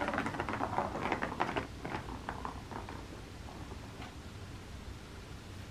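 Plastic ball rolling and rattling around the plastic channel of a Turbo Track cat toy. Light, irregular clicks, busiest in the first two seconds, then fainter.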